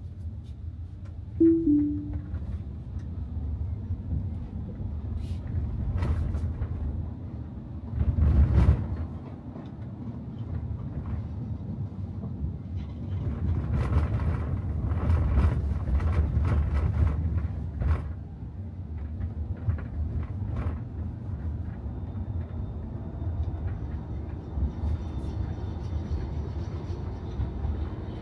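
Tesla Model Y driving, with a steady low road and tyre rumble that swells and eases. There is a brief falling two-note tone about a second and a half in and a louder bump about eight seconds in.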